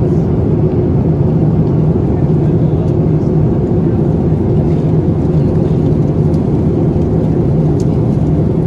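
Steady low cabin drone of a Boeing 787-9 airliner at cruising altitude: engine and airflow noise heard inside the cabin from a window seat beside the wing.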